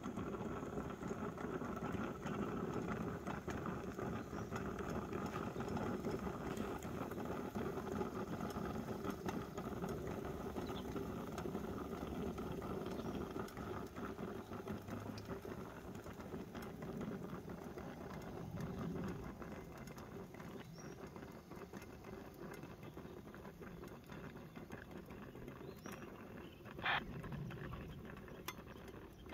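Aluminium camping coffee percolator on an electric hot plate, perking: a steady bubbling with many small clinks and rattles from the pot, easing off in the second half. A brief, sharp, high chirp sounds near the end.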